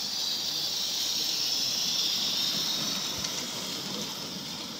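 16mm-scale live steam locomotive hissing steam steadily, with no distinct exhaust beats. It grows a little louder, then eases off toward the end.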